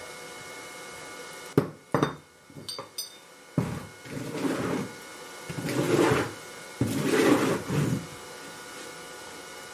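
A few sharp knocks on a wooden sand-casting flask, then scraping and rubbing of wood on packed green sand as the flask's top half is lifted off the mould and handled, with a thud as it is set down about seven seconds in.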